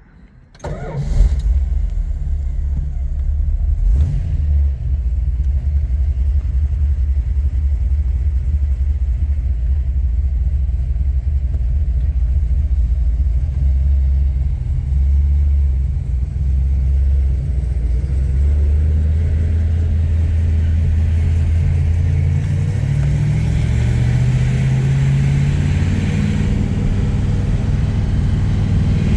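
1970 Plymouth Cuda's 440 Six Pack V8 with three two-barrel carburetors, running as the car is driven: a deep low rumble that starts about a second in, with the revs climbing and stepping in the second half.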